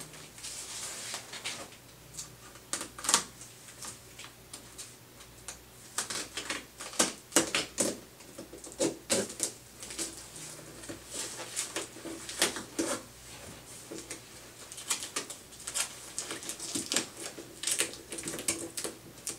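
Irregular clicks, crackles and rustles of backboard straps and head-immobilizer fasteners being handled and pressed into place while a patient's head is secured to a spine board.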